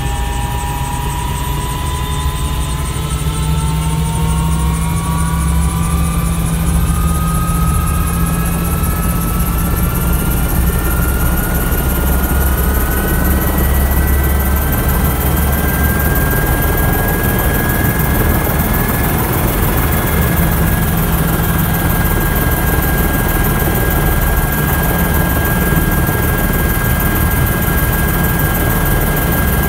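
Airbus H120 helicopter's Arrius 2F turboshaft engine running up, its turbine whine rising in pitch and levelling off about two-thirds of the way through, over a heavy low rumble from the spinning rotor. The rotor and engine are coming up to speed after the start.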